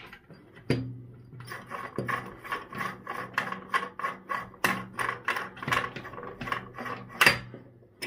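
Lagard manual combination safe dial being unscrewed by hand from its threaded spindle: a quick run of short rasping scrapes, about three a second, as each twist turns it on the threads. A sharp click comes about a second in, and a louder one near the end.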